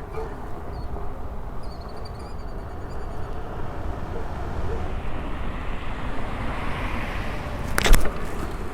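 Steady wind and road rumble while riding an electric unicycle, with a faint wavering high tone about two seconds in and a single sharp knock near the end.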